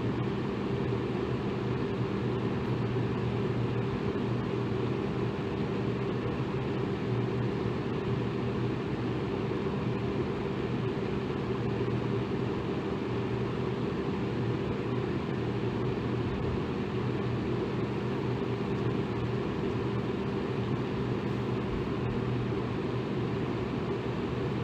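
Electric fan running steadily: an even whooshing rush of air with a low motor hum underneath.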